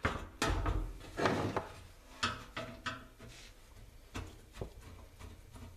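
Empty sheet-metal Coleman stove case knocking and rattling as it is handled and shifted on a wooden workbench, with a heavier thump about half a second in, then lighter clicks of a screwdriver against the metal case.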